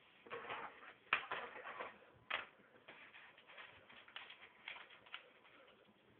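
Lego plastic pieces being handled and pressed together: irregular small clicks and rattling, with two sharper clicks about a second and two seconds in.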